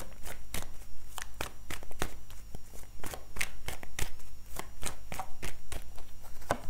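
A deck of tarot cards being shuffled by hand: quick, irregular card snaps and taps, several a second.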